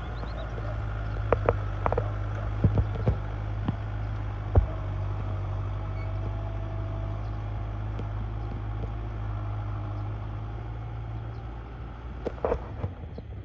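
Kubota M6040SU tractor's four-cylinder diesel engine running steadily under load while rotary tilling a paddy field, with several sharp knocks and clanks in the first few seconds and again near the end.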